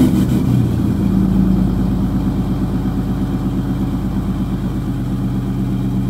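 Pickup truck engine just started in cold weather. It runs a little fast for about a second, then settles into a steady idle.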